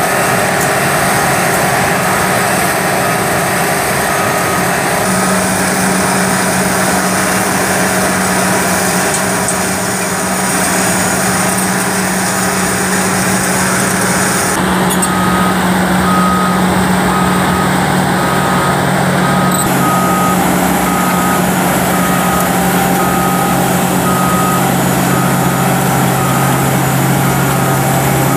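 The 350 hp Detroit Diesel engine of a Cedarapids profiler running steadily under load as the machine mills the surface and feeds its conveyor. From about halfway through, a backup alarm beeps a little over once a second.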